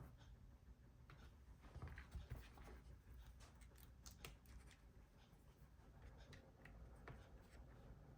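Near silence with faint, scattered light clicks and handling noises.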